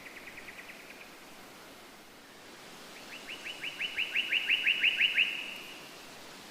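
A songbird singing trills of quick, evenly repeated notes: a softer trill ending about a second in, then a louder one of about fourteen notes starting about three seconds in, growing louder before it stops. A steady faint hiss underneath.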